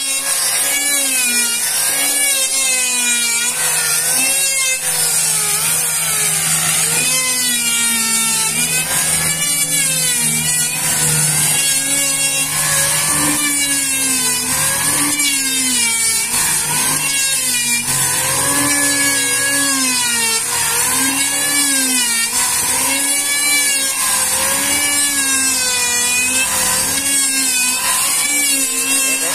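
Handheld electric planer running as it shaves a wide wooden board. Its motor pitch dips as each pass bites into the wood and rises again, about every second and a half.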